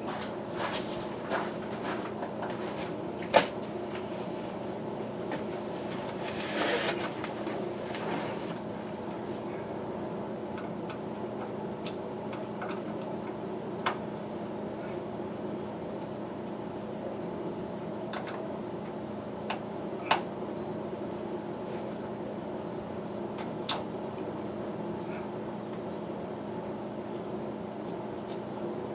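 Scattered sharp clicks and knocks of handling work over a steady mechanical hum. The loudest knock comes about three seconds in, with a short scuffling stretch around seven seconds.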